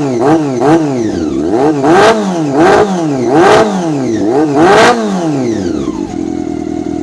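Honda Super Four motorcycle's inline-four engine through a newly fitted M4 aftermarket exhaust, blipped in quick repeated revs, about one every two-thirds of a second, then dropping back to a steady idle near the end.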